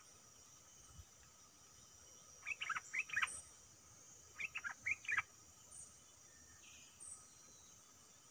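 Sooty-headed bulbul singing two short bubbling phrases of several quick notes each, the first about two and a half seconds in and the second about two seconds later.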